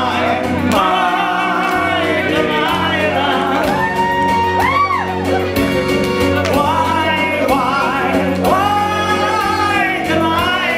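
A man singing a Celtic song into a microphone over a steady instrumental backing, with long held, wavering notes and a swoop up and back down in pitch about halfway through.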